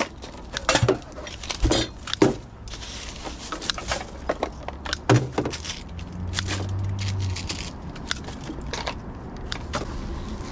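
Litter picking by hand: a grabber tool snapping shut on rubbish among dry leaves and twigs, and pieces of litter clattering into a plastic bucket, making a string of sharp clicks and knocks.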